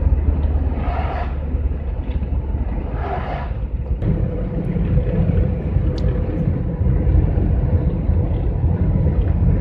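Steady low engine and road rumble inside the cab of a GAZelle van driving on a highway. Two short hisses come and go in the first four seconds; then the rumble grows fuller and a steady hum joins it.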